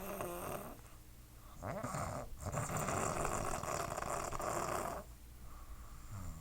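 Snoring in slow breaths: one snore trails off just under a second in, and a second, long snore runs from about two and a half to five seconds in, with quieter gaps between.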